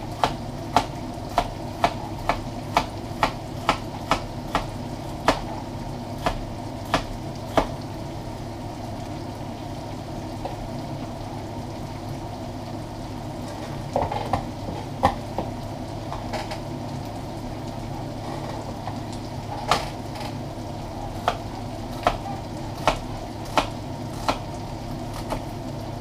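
Chef's knife chopping celery on a cutting board, sharp taps about two a second for the first seven or eight seconds, then a pause, then scattered taps again in the second half. Under it, a steady sizzle of beef chuck cubes browning in olive oil in a stockpot.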